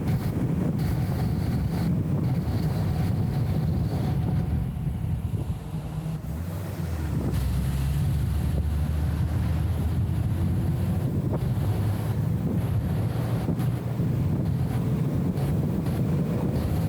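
Low, muffled rumble of engine and road noise from a BMW E34 M5 Touring on the move, dulled by the camera's anti-wind filter. It dips briefly about five seconds in, then settles back to a steady drone.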